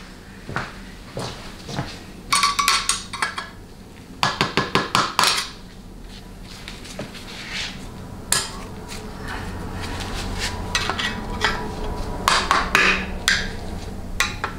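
Light metal-on-metal taps and clinks in a few quick clusters: a hammer and screwdriver tapping the steel feed pipe down into a 700R4 automatic transmission's valve body to seat it.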